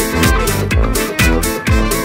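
Upbeat electronic dance music with a steady beat about twice a second.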